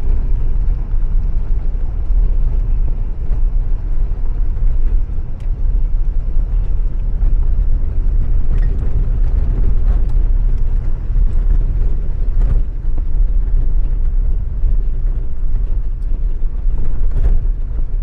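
Car cabin noise while driving slowly over a broken-up road: a steady low rumble of engine and tyres, with occasional sharp knocks and rattles from bumps.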